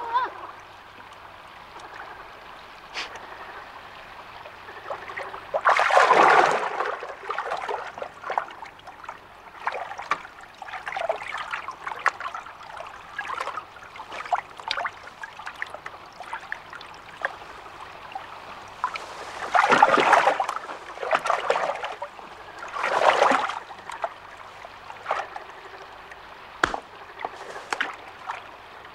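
Water trickling and lapping with small drips, broken by louder splashes about six seconds in and twice more around twenty seconds in.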